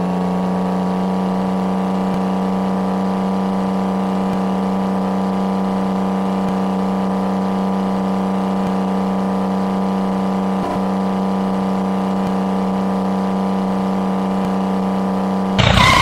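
Small motor running at one steady speed: an even hum at a fixed pitch that cuts off suddenly near the end.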